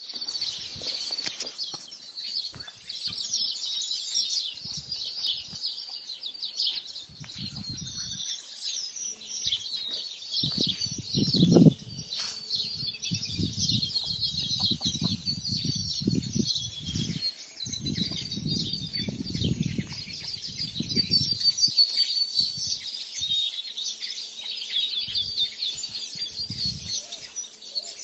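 Many small birds chirping and twittering together without a break, with spells of low rumbling noise, strongest from about ten to twenty-one seconds in.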